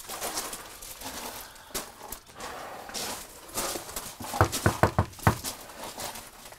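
Footsteps crunching on a gravel driveway, then a quick run of about five knocks on a front door a little over four seconds in.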